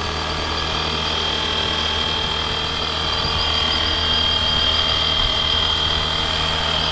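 FlyWing Huey UH1 V3 electric RC helicopter hovering low: a steady whir from the rotors with a continuous high-pitched whine from the electric motor and drive.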